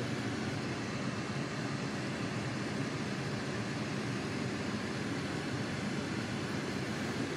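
Steady hum and rush of a running car, heard from inside its cabin.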